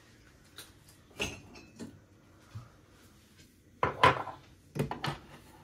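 Handling clatter of a cup and coffee-machine parts being set in place: several separate sharp knocks and clicks, the loudest cluster about four seconds in.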